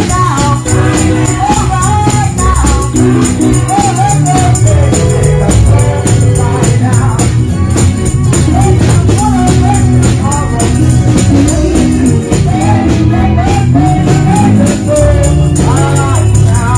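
Gospel music: voices singing a melody over a band with steady bass and a regular percussion beat.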